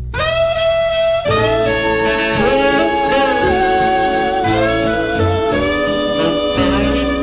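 Background instrumental music: a lead melody of long held notes, some sliding into pitch, over a steady bass line.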